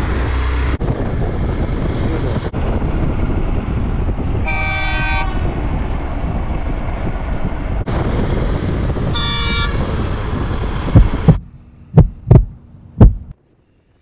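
Wind rush and engine noise of a moving motorcycle, with a horn blown twice, about four and a half and nine seconds in. Near the end the riding noise cuts off and several deep booms follow before silence.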